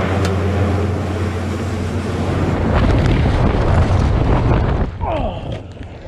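Four-engine turboprop transport's engines running with a steady low propeller drone. About three seconds in, louder rushing wind noise takes over. About five seconds in the noise drops away sharply, with a few brief falling whistles.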